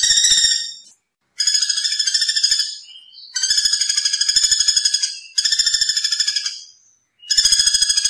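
Common flameback woodpecker (platuk bawang) giving its rapid, rattling trill calls, each lasting one to two seconds and repeated after short pauses.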